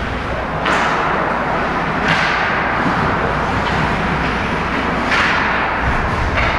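Ice hockey game play: sharp scraping hisses about four times, each fading over half a second, typical of skate blades cutting and stopping on the ice, over a steady arena din.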